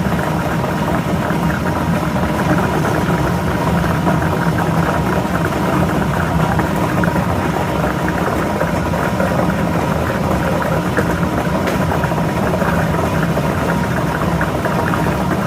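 Lottery ball-drawing machine running: a steady blower hum with the balls rattling and clattering continuously.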